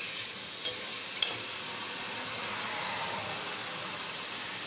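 Chicken pieces sizzling in oil with onion and tomato masala in a steel pot, a steady hiss while being lightly fried. A metal slotted spoon clinks against the pot a couple of times about a second in.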